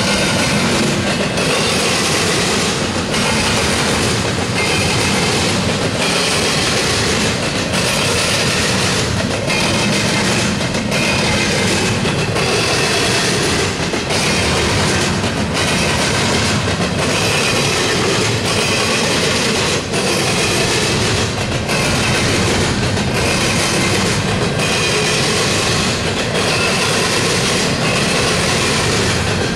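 Double-stack intermodal well cars of a freight train rolling past at close range: loud, steady noise of steel wheels on the rails, with short dips every second or two as the cars go by.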